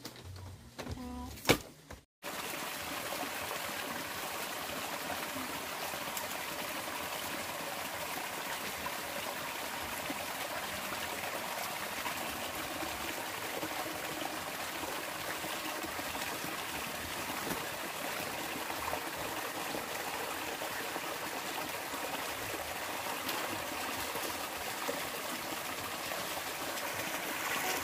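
Steady trickling of running water, a stream or flow, starting abruptly about two seconds in and holding even throughout.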